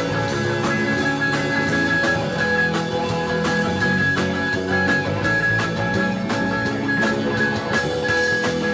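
Live rock band playing an instrumental jam: electric guitars, bass guitar and drum kit, with a steady beat of about four cymbal strokes a second.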